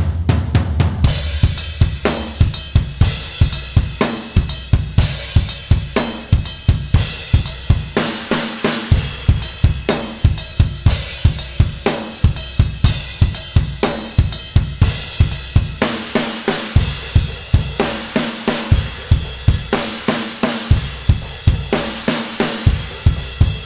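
Acoustic drum kit (Yamaha Stage Custom drums, Tama aluminium snare, Paiste, Sabian and Meinl cymbals) played hard in a steady metal pattern: bass drum, snare, hi-hat and crashes, with no other instruments.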